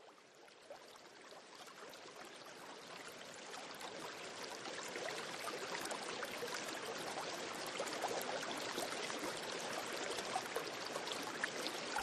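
Flowing river water, a steady rushing and babbling that fades in from silence and grows gradually louder.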